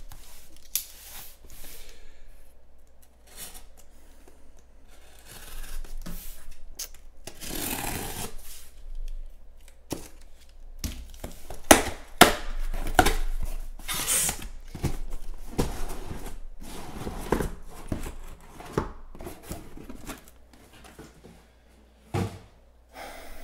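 A cardboard shipping case being cut and torn open: packing tape slitting and ripping, and cardboard scraping and rustling, with a few sharp knocks about halfway through and a single thump near the end as the boxes inside are handled.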